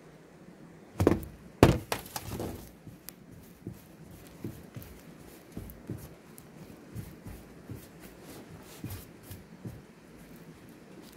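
Two sharp knocks on sheet-metal roofing about a second in, then faint scattered taps and rubbing as gloved hands press sealant around the base of a metal chimney pipe.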